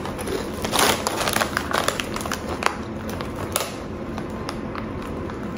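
Crunching of seasoned potato chips being chewed: irregular crisp crunches and crackles, several in the first four seconds, thinning out after that.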